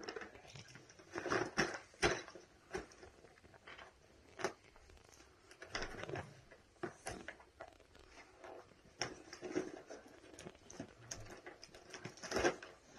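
A cardboard toy box being handled and opened by hand, with irregular rustles, taps and scrapes of cardboard.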